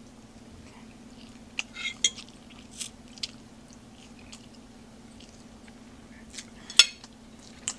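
Close-up chewing and biting of a mouthful of chicken salad with spinach and cucumber, with scattered short crunches and clicks, and a metal fork tapping the plate. The sharpest click comes near the end, over a faint steady hum.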